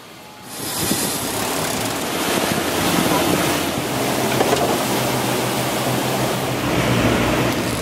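Wind buffeting the microphone and water rushing past a boat under way on open sea, with a low steady motor hum underneath from about halfway in. It rises in after a short quiet moment at the start.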